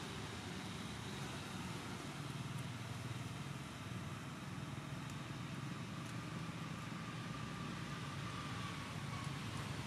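Steady low rumble of motor traffic in the background, unchanging throughout.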